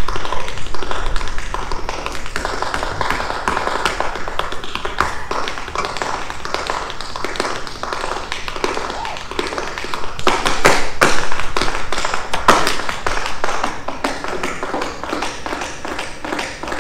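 Tap dancers' shoes striking the stage in a fast, dense clatter of taps, several dancers at once, with the loudest run of strikes about ten to thirteen seconds in.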